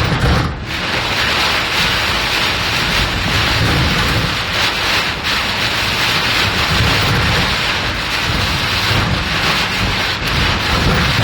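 Heavy rain and floodwater rushing around a car driving through a flooded street: a loud, steady wash of water over a low rumble, dipping briefly about half a second in.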